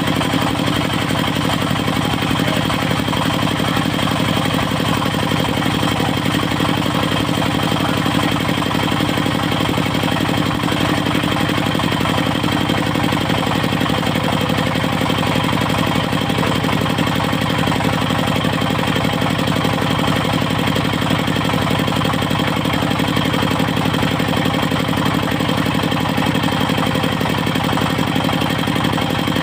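Engine of a portable circular sawmill running steadily at an even speed, a fast regular firing pulse with a low hum.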